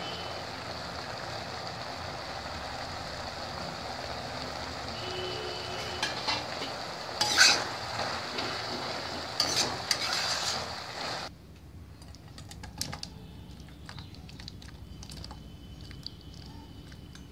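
Brinjal curry sizzling in a stainless-steel kadai while a metal spatula stirs it, scraping and clinking against the pan now and then. About eleven seconds in the sizzle stops abruptly, leaving quieter scrapes and clinks as the curry is scraped out of the pan into a steel bowl.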